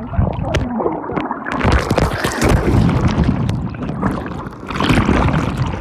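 Churning, bubbling water and splashing against a camera moving underwater and at the surface of a swimming pool, muffled as it is heard through the water, easing briefly a little past the middle.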